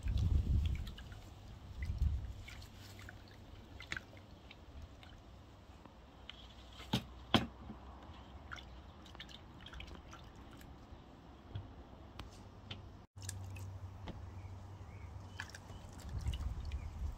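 Bell peppers being handled in a wooden bowl and set down on a wooden board: soft knocks and rubbing, with two sharp taps about seven seconds in.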